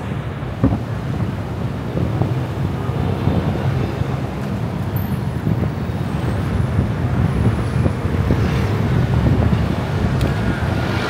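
A car driving through city traffic: a steady low rumble of road and engine noise, with one short thump under a second in.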